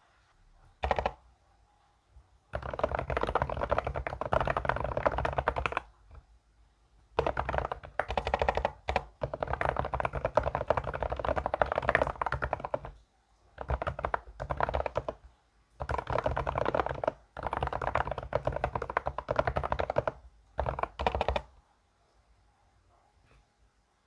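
Fast typing on a computer keyboard, the keystrokes coming in runs of a few seconds broken by short pauses, as in a keyboard typing sound test.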